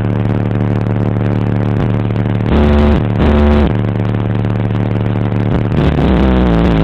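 Bass-heavy music played loud through a car audio system with RE Audio subwoofers, over 1,000 watts. Two especially deep, loud bass notes come about two and a half and three seconds in, and the bass line bends in pitch near the end.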